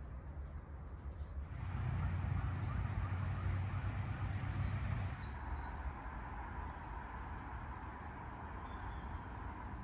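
Outdoor garden ambience: a steady low rumble with a background hiss that shifts abruptly twice, and faint bird chirps in the second half.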